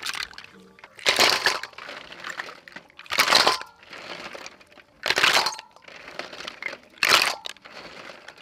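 Sea snail shells being scrubbed together by hand in a metal bowl: four loud grinding, clattering strokes about two seconds apart, with lighter rattling of the shells between them.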